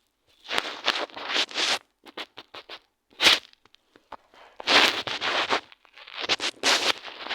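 Cat grooming itself: repeated rasping scrapes of its tongue on its fur, in spells of about a second with single strokes in between.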